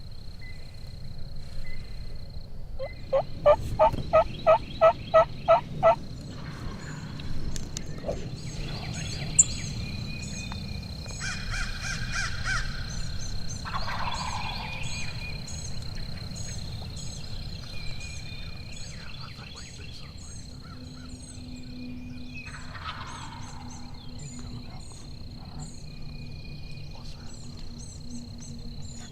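Osceola wild turkey calls: a loud run of about ten evenly spaced yelps a few seconds in, then gobbling further on. Songbirds chirp throughout.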